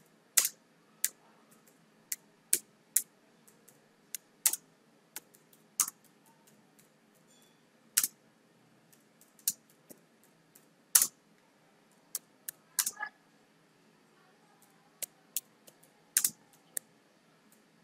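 Typing on a computer keyboard: separate keystroke clicks at an uneven pace, often with a second or more between them and now and then two in quick succession.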